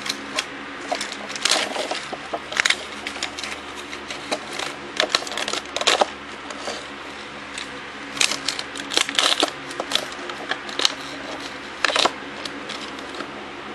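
Plastic LEGO bricks clicking and rattling in irregular clusters as a hand-built LEGO garbage truck model is handled and moved, over a steady low hum.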